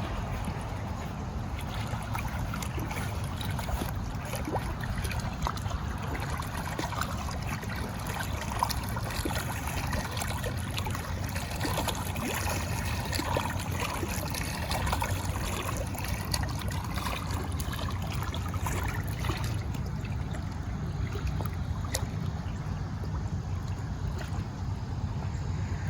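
Water of a stream trickling and splashing, many small drips and bubbles over a steady low rumble.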